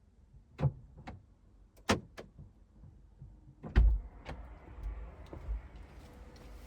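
Several sharp clicks and knocks in a car, then a heavy thud about four seconds in, after which a steady low rumble carries on.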